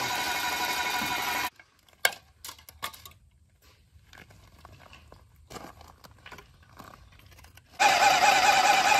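Paint sprayer pump motor running steadily, cutting off about a second and a half in. A few sharp clicks and taps from a metal paint-can lid being handled follow. Near the end the sprayer pump starts running again loudly as it draws lacquer up from the can.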